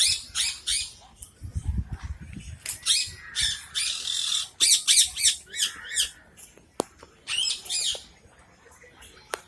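Parrots squawking: many short, harsh, high-pitched calls overlapping one another, thinning out near the end.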